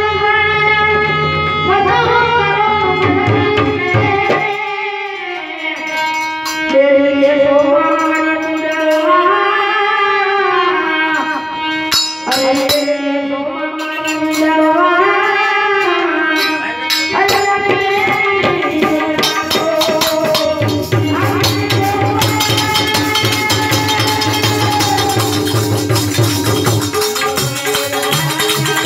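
Live Indian folk music: a keyboard melody with sliding notes over tabla. Jingling hand percussion joins in about two thirds of the way through and keeps going.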